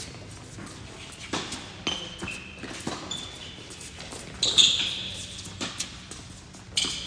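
A tennis rally on an indoor hard court: a series of sharp racket-on-ball hits and ball bounces about a second apart, the loudest about four and a half seconds in, echoing in the large hall, with brief high shoe squeaks on the court surface.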